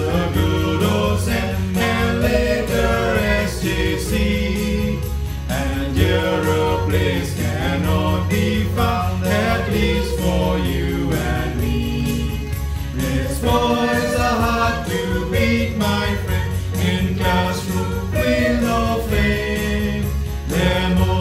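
A choir singing a school song over instrumental backing, with a steady low bass line.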